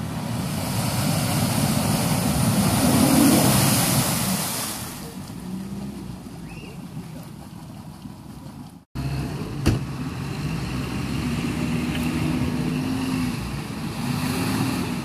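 A 4x4 SUV's engine revving hard as it drives through deep mud with wheels spinning, mud and water spraying, loudest a few seconds in. After a sudden cut about nine seconds in, the engine runs on under load at a steadier pitch, with a single sharp knock just after the cut.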